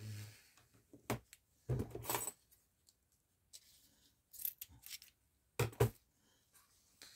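Red ribbon being handled and cut with a pair of scissors: a few short, crisp rustles and clicks, with two close together near the end.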